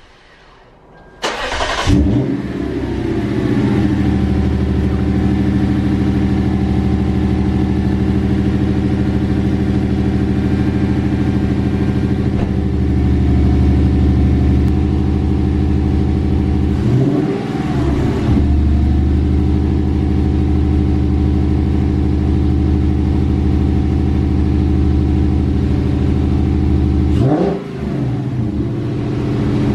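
The Lexus IS F's 5.0-litre V8 starting up on fresh spark plugs about a second in, catching at once and settling into a steady idle. It runs smoothly, showing that the new plugs and reconnected parts work. The engine's pitch swings briefly twice, about halfway through and near the end.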